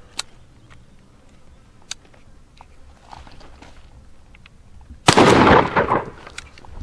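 A single shot from a Citadel Boss 20-gauge side-by-side coach gun, firing buckshot through its full-choke barrel, about five seconds in: one sharp blast that rings out and fades over about a second. A few faint clicks come before it.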